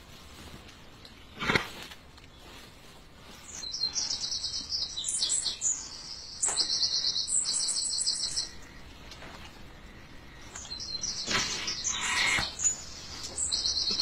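Small birds chirping in fast, chattering runs that come and go. A few knocks and rustles fall in between, the loudest a sharp knock about a second and a half in.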